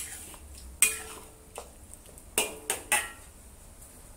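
Metal wok spatula striking and scraping against a wok, about five sharp clinks with a brief ring after each, three of them close together near the end, while stirring cornstarch slurry into braising liquid to thicken it into gravy.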